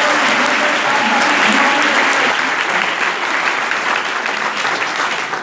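A large seated congregation applauding: dense, steady clapping that eases slightly toward the end.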